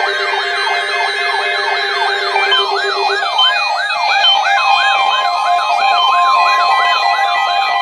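Weather radio warning alarm: several overlapping siren-like tones sweep up and down about three times a second. A lower steady tone drops out about three seconds in, and a steady high tone joins about five seconds in.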